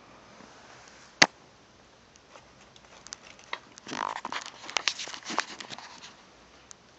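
A single sharp knock about a second in, then a pet lapping water, with irregular wet clicks for about three seconds from midway.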